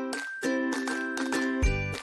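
Light background music of short, rhythmic plucked chords; a low bass beat comes in near the end.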